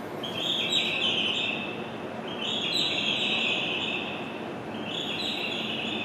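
Recorded bird-chirp guide sound on a station platform, played in three short bursts of chirping about every two and a half seconds over the platform's steady background noise. It is the kind of chirp played at platform stairs to guide visually impaired passengers.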